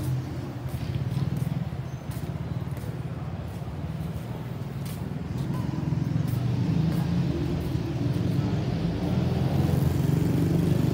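Steady rumble of city road traffic, growing louder about halfway through, with a few faint ticks in the first half.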